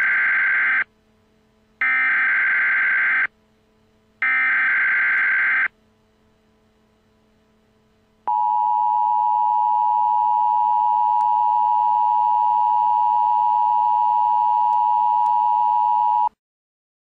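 Emergency Alert System SAME header: three bursts of screechy digital data tones, each about a second and a half long, with short pauses between them. About two and a half seconds later comes the EAS attention signal, a steady two-tone 853/960 Hz alarm, which lasts about eight seconds and cuts off sharply.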